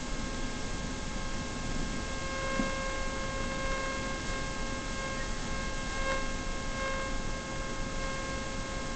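Steady hiss with a constant electrical whine made of several high tones, with a couple of faint, brief soft sounds.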